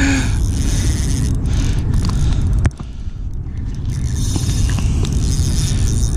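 Spinning reel being wound in, retrieving a soft-plastic lure, over a steady low rumble. One sharp click comes about two and a half seconds in.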